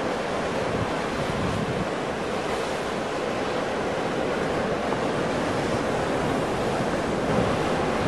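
Ocean surf: waves breaking in a steady, unbroken wash of noise.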